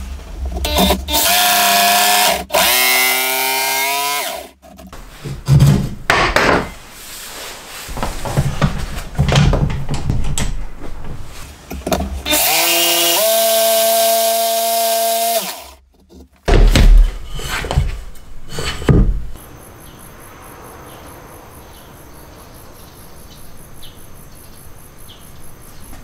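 Bosch PST 1000 PEL jigsaw running in two bursts as it cuts a softwood board, its motor pitch dropping as the blade takes the load and then holding steady. Wooden knocks and clunks come between and after the cuts. Then only a faint steady background remains.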